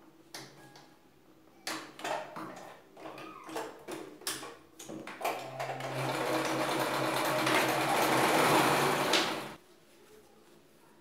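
Singer domestic sewing machine stitching a zigzag seam through denim: it runs steadily for about four seconds from roughly halfway in, then stops abruptly. Before it starts there are scattered clicks and rustles as the denim is set under the presser foot.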